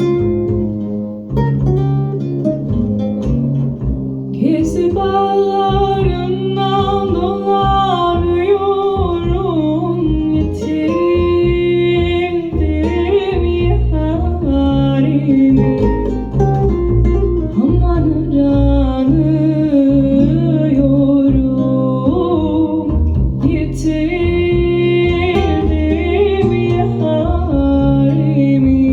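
Turkish folk song playing through KEF Reference 1 Meta loudspeakers driven by a Hegel H390 amplifier. A plucked string instrument opens, then a voice sings from about four seconds in, pausing briefly near the last few seconds.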